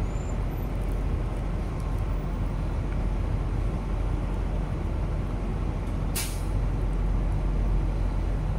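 Steady low rumble of idling diesel truck engines, with a short air-brake hiss about six seconds in.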